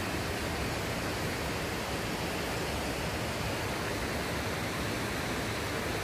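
Valley stream water flowing, a steady, even rush with no breaks.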